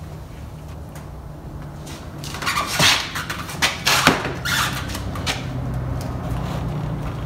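Plastic front grille of a Dodge Journey being pushed into place by hand: scraping plastic and several sharp clicks as its tabs are pressed into their clips, starting about two seconds in.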